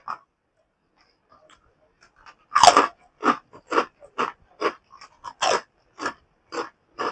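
A person biting and chewing food with a crunch, close to the microphone: a loud first bite about two and a half seconds in, then steady chewing at about two chews a second.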